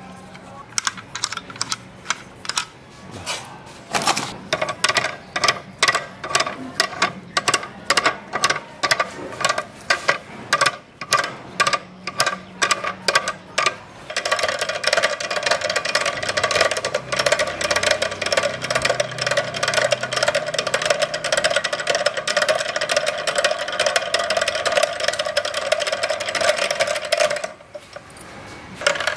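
Homemade bevel gearbox with steel pin teeth turned by hand, its pins clicking as they mesh: first separate irregular clicks about twice a second, then from about halfway a fast, continuous metallic rattle as the shaft is spun quickly, which stops just before the end.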